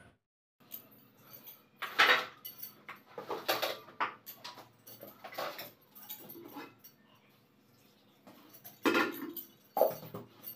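Kitchen utensils and containers clinking and clattering as they are handled on a counter: irregular knocks, with louder clatters about two seconds in and near the end.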